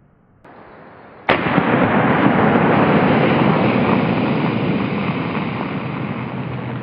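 A single 9mm pistol shot about a second in, then a loud, steady hiss as a punctured pressurized container vents a jet of spray, slowly fading.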